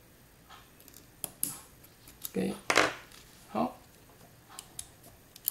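Handling noise from a small metal airsoft gearbox and hand tools: a string of light clicks and knocks as the parts are worked and the gearbox shell is picked up, loudest about two to three and a half seconds in.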